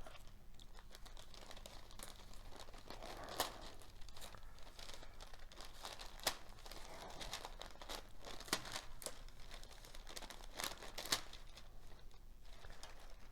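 Grease-proof paper crinkling and tearing as a wing part glued to it is pried free, with scattered sharp cracks where the glue lets go.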